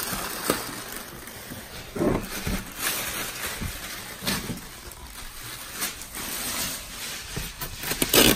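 Plastic wrapping and cardboard packaging being handled: irregular crinkling and rustling with scattered scrapes and light knocks as the packed items are lifted out of the box.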